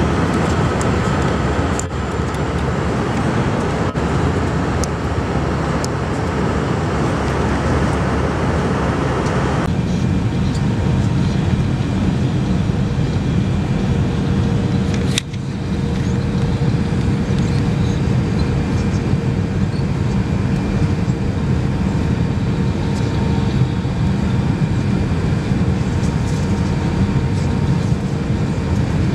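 Steady cabin noise inside an Airbus A319 airliner: the engines running with a rush of air. The higher part of the noise drops away about ten seconds in, and there is a brief dip about halfway through.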